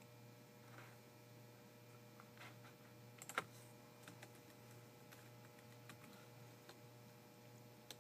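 Computer keyboard typing and clicking in scattered, light keystrokes, with one sharper click about three and a half seconds in, over a steady low hum.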